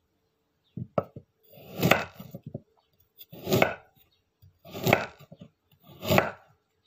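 Kitchen knife slicing through a tough, wood-like vegetable held in the hand: a few light clicks, then four slow cutting strokes about a second and a half apart, each swelling and ending sharply.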